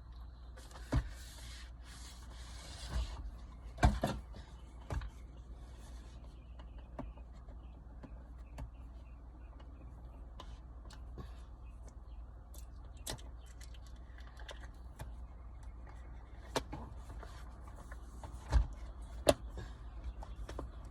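Unboxing handling of a mirror dash cam and its packaging: a rustle of packaging early on, then scattered knocks and clicks as parts are lifted out and set down, over a steady low hum.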